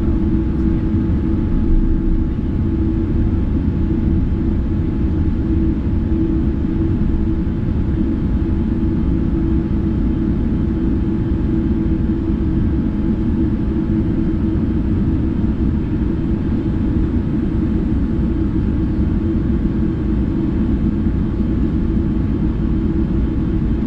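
Steady low rumble inside the passenger cabin of a Boeing 787-9 airliner taxiing after landing, with a constant hum over it.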